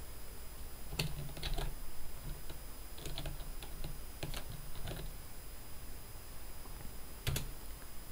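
Typing on a computer keyboard: a few scattered, irregular keystrokes with pauses between them, the last one about seven seconds in.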